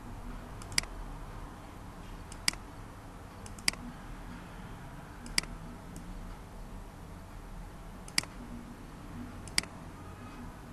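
Computer mouse button clicking six times at irregular intervals, each a sharp single click, over a faint steady hum.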